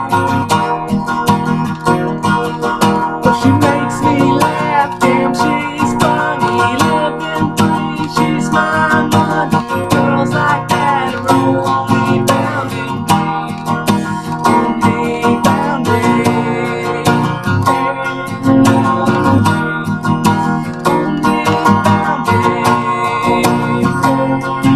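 Acoustic guitar strummed steadily in a continuous rhythmic chord pattern.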